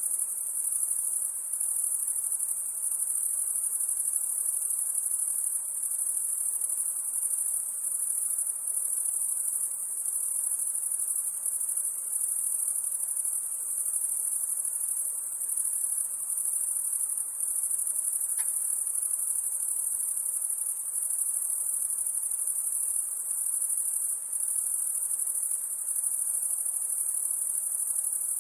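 Crickets chirring in a continuous, steady, high-pitched trill.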